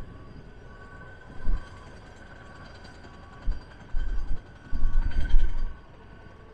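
Train noise: irregular low thuds, loudest in a cluster from about four to five and a half seconds in, over a faint steady high tone.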